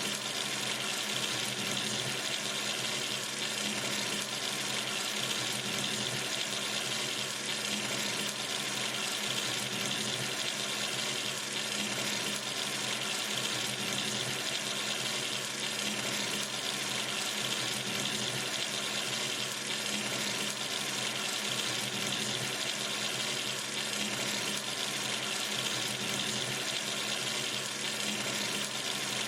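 Water running steadily from a sink tap, an even, unbroken splashing stream.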